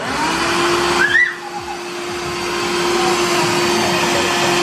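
Household vacuum cleaner switched on, its motor spinning up to a steady hum and rush of air. A brief high squeak comes about a second in.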